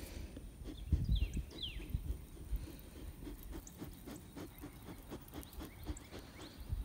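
Soft rustling and low handling rumble from a phone pressed against a sheep's wool as the sheep is stroked, with two short falling chirps about a second in.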